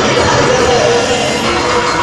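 Loud music playing over the noise of a large, dense crowd.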